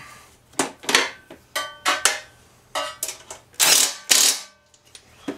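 Cordless impact driver run in several short bursts, the loudest a pair about three-quarters through, tightening the mounting bolts of a pressure washer pump.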